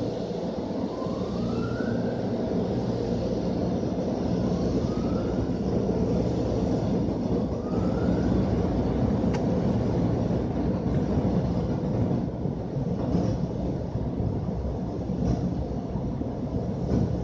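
Touchless car wash air dryer blowers running: a steady, loud rush of air heard from inside the car cabin, blowing the water off the windshield. Three short rising whines come about three and a half seconds apart in the first half.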